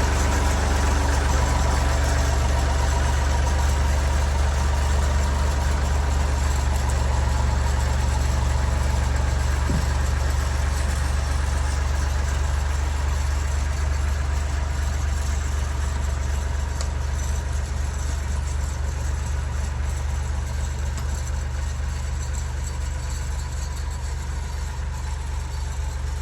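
Old Massey Ferguson tractor engine running steadily while it pulls a potato plow through the ground to dig a trench. The engine slowly grows fainter.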